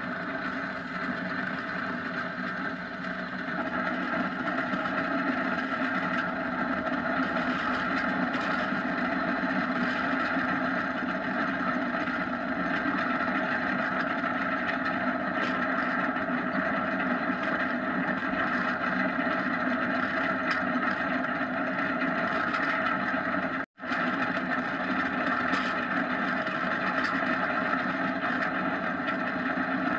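Onboard running noise of a kart travelling fast down an asphalt road: a steady, even roar. It cuts out completely for a split second about three-quarters of the way through.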